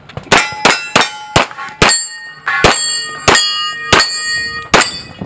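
Rapid pistol shots, about nine over five seconds, with steel target plates clanging and ringing on after the hits.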